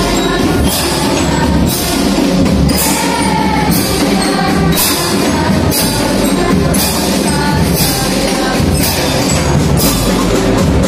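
School drum band playing with a choir singing an Indonesian folk song. Drums and keyboard carry the tune, and cymbal crashes fall about once a second on the beat.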